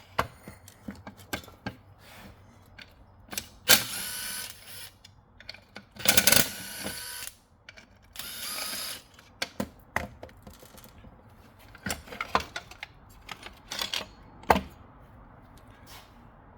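Power driver running in three short bursts of about a second each, backing out the screws that hold the chainsaw's handle. Sharp clicks and clatter of tools and parts come between the runs.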